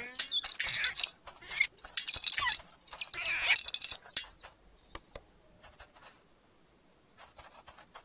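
High squeaky chirping and chattering cartoon sound effects in several loud bursts, then a scattering of light clicks and taps from about four seconds in.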